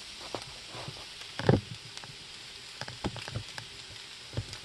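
Scrambled eggs sizzling faintly in a hot cast iron skillet, with a few scattered knocks and clicks, the loudest about a second and a half in.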